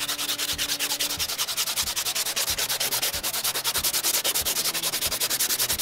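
Sandpaper rubbed by hand over a patched plastic car bumper in quick, even back-and-forth strokes, several a second, sanding down the filled repair.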